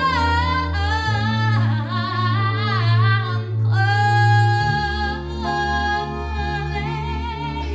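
Live music: a woman sings long held notes with vibrato through a microphone over sustained electric keyboard chords, with a harmonica also playing.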